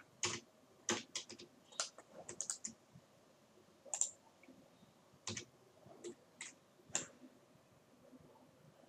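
Computer mouse and keyboard clicks: about a dozen short, sharp clicks at uneven intervals, some in quick runs of three or four.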